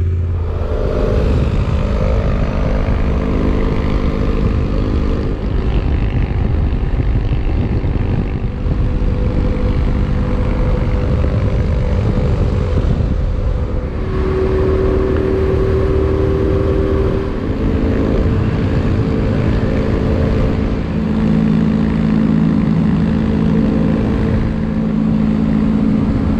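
Motorcycle engine pulling away and then running at road speed, mixed with wind and road noise on a bike-mounted camera. The engine note holds steady for several seconds at a time and shifts pitch a few times.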